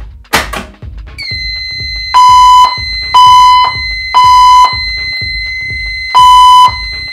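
A fire alarm pull station is pulled with a short sharp clack. A steady high whine then starts, and System Sensor speaker/strobes sound the temporal-three evacuation tone: three half-second beeps, a pause, and the next round begins near the end. Background music with a low beat runs underneath.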